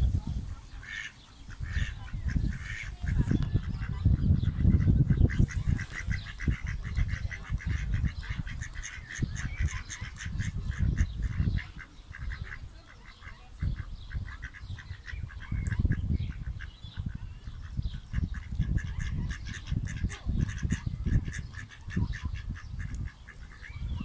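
Mallard ducks calling in long runs of rapid, repeated short calls, about a third of the way in and again near the end. A gusty low rumble of wind on the microphone runs underneath.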